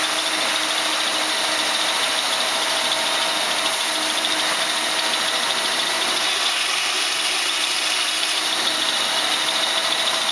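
Engine lathe running steadily while a boring bar cuts the Babbitt lining of a stern tube bearing under flood coolant: an even mechanical hiss with a faint steady high whine.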